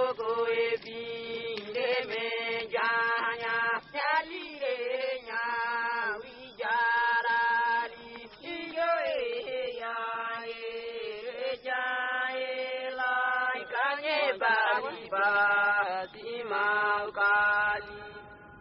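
A single voice singing an unaccompanied chant-like melody in held notes, sliding between pitches, in short phrases with brief breaks.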